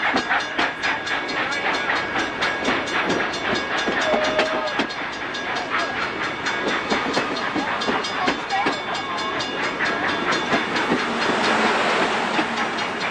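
Union Pacific passenger cars rolling past close by, their wheels clicking in a fast, even run over the rail joints above a steady rolling rumble.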